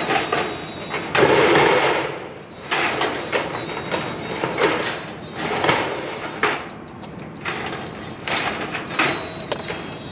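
Irregular clanks, rattles and scrapes of steel framing being handled and fitted on a metal barn frame, in short bursts, with a longer burst about a second in.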